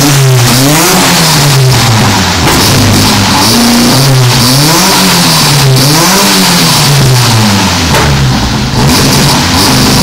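Racing hatchback's engine being revved while standing still, the revs climbing and dropping back several times in a row, with a short drop to low revs about eight seconds in.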